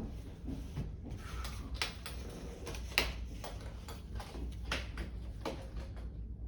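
Irregular light clicks and taps of hand tools and parts being handled at a repair bench, with one sharper click about three seconds in, over a steady low hum.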